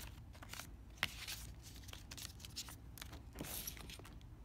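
Faint rustling and scraping of paper and card inserts being handled, with a sharp tap about a second in and a brief rustle a little past three seconds.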